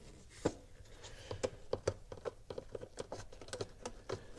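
A quick run of light clicks and taps, a few at first and then about six a second, from hands working the plastic air intake tube loose at the throttle body of a 2020 Chevrolet Silverado.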